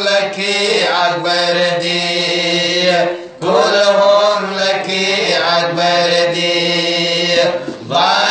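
Men singing a Manipuri marifat, a Muslim devotional song, in long held, chant-like phrases, with a short breath pause about three seconds in and another near the end.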